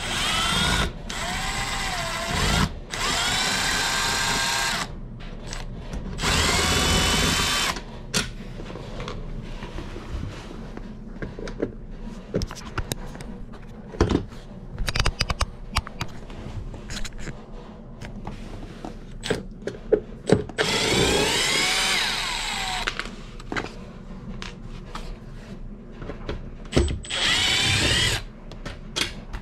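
Cordless drill/driver running in about six bursts of a few seconds each, its motor whine gliding up in pitch as it spins up, driving screws. Sharp clicks and knocks between the bursts.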